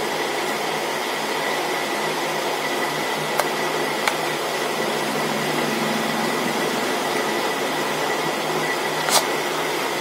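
Steady room noise: an even whooshing hiss with a faint high whine, broken by a few soft clicks.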